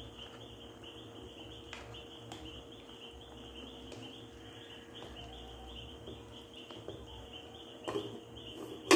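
A cricket chirping steadily in a fast pulsing rhythm behind a pot of sausages in sauce being stirred with a plastic ladle. Near the end the metal lid is set on the pot with two clanks, the second one loud.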